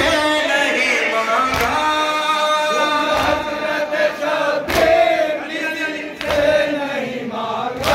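A crowd of men chanting a noha lament in unison, with a sharp thump about every three seconds from the chest-beating of matam.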